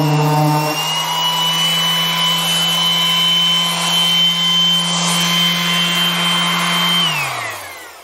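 Random orbital sander doing fine-grit sanding on hard maple, then lifted off the wood and running free with a steady motor hum and high whine. It is switched off about seven seconds in and winds down, its pitch falling as it stops.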